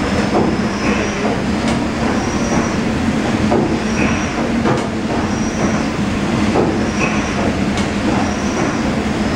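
Paddle steamer Waverley's 1946 Rankin & Blackmore triple-expansion steam engine running: a steady mechanical clatter and hiss, with a cycle of knocks and brief hisses repeating about every three seconds as the cranks turn.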